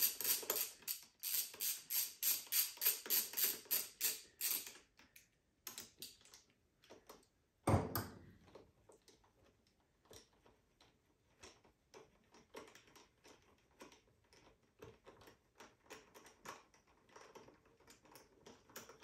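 Hand socket ratchet clicking in quick, even strokes as a bolt above the motorcycle's triple clamp is loosened, stopping about four and a half seconds in. A single knock comes near eight seconds, then faint scattered clicks of the tool being worked.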